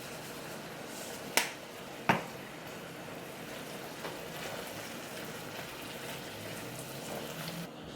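Steady hiss of a pot of pasta boiling on the stove, with two sharp clicks about a second and a half and two seconds in.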